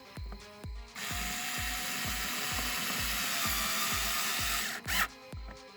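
Power drill running steadily for about four seconds, starting about a second in and cutting off near the end, over background music with a steady beat.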